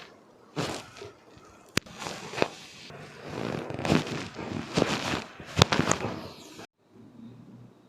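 Joints cracking during a chiropractic spinal adjustment: a sharp pop about two seconds in and another nearly four seconds later, among rustling and rubbing of hands and clothing against the patient's body and the table.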